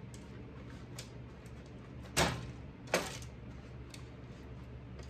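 Two sharp knocks about three-quarters of a second apart, with a few light clicks, as warm HDPE and its mould are handled; a steady low hum runs underneath.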